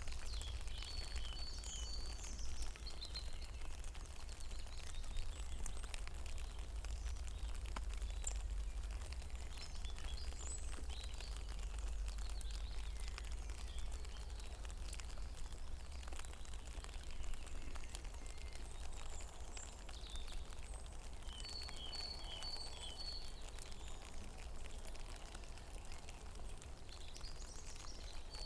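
Rain falling on a pond, a steady patter of scattered drops over a low rumble. A bird calls a short run of high repeated notes near the start, again about two thirds of the way through, and at the end.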